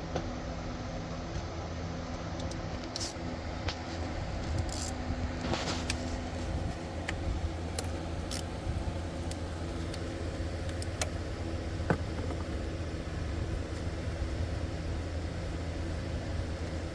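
Scattered metallic clicks and clinks of a ratchet and socket working loose 8 mm bolts, over a steady low hum.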